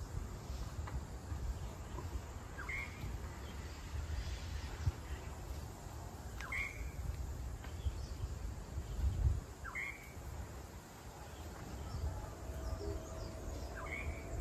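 A bird giving a short call four times, about three to four seconds apart, over a steady low rumble.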